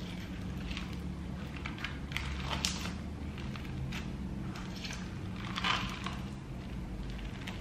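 Green floam (slime packed with foam beads) being squished and kneaded by hand, the beads crunching and crackling in irregular short bursts.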